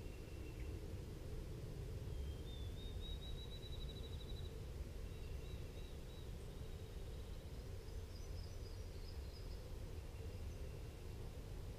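Small songbirds singing faintly in the woods over a steady low background rumble. A high, rapid trill comes about two seconds in, with a few thin whistled notes and a higher warble near the end.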